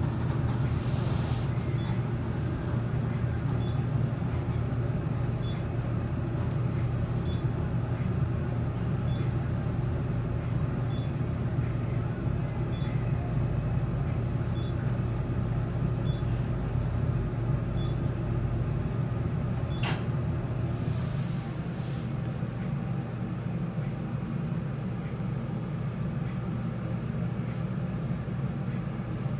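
Urban traction elevator cab in motion: a steady low hum from the car running in the shaft, with faint ticks about once a second. A sharp click comes about 20 seconds in, followed by a brief hiss, and the hum drops a little as the car nears its stop.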